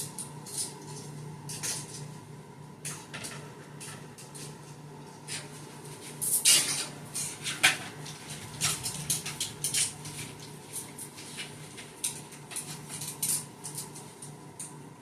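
Clothes and hangers being handled: a string of light clicks, clinks and rustles, busiest and loudest about six and a half to eight seconds in, over a steady low hum.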